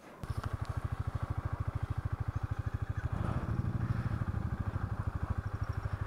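KTM Duke 250's single-cylinder engine idling with a steady, rapid beat of firing pulses, picking up briefly about three seconds in.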